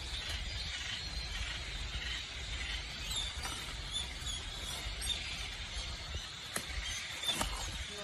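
Tropical forest-floor ambience: a steady high hiss over a low rumble, with short high chirps from about three seconds in and a few sharp clicks near the end.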